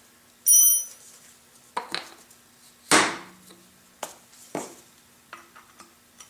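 Steel drill rod clinking and knocking against a steel roller shaft and bearing as it is worked into a pin hole to test its alignment: a ringing metallic clink about half a second in, then a string of sharp taps and knocks, the loudest about three seconds in.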